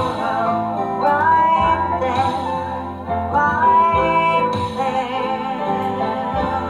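Music: a melody with notes changing about once a second over a steady low accompaniment.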